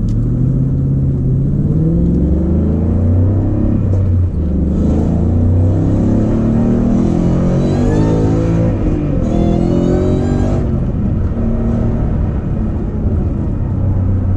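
Supercharged Ford Mustang engine heard from inside the cabin, accelerating through the gears with a manual short-throw shifter. Its pitch climbs in each gear and drops back at each shift. The hardest pull comes from about five to ten and a half seconds in, then the engine eases off to a steadier cruise.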